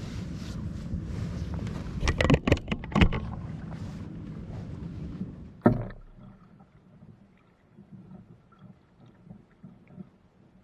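Canoe paddling with wind rumbling on the microphone. A quick cluster of sharp, loud knocks comes about two to three seconds in, and a single knock just before six seconds. After that it goes much quieter, with only faint scattered taps and splashes.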